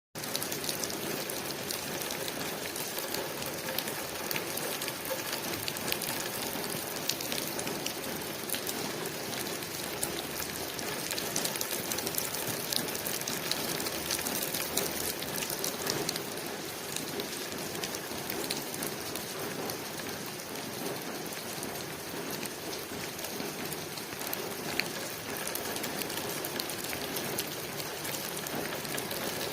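Steady rain falling on a window pane, a dense even patter of drops with many small individual ticks.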